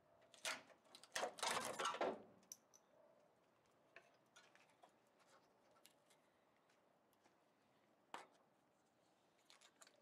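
Hand tool prying and scraping at a rotted wooden roof header and its bolt: a sharp click, then about a second of rasping scrapes, then a few faint ticks with near silence between.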